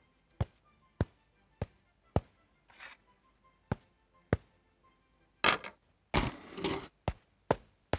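A series of sharp, short taps on a near-silent soundtrack: evenly spaced about twice a second at first, then further apart. Two brief noisy scuffs come near the end.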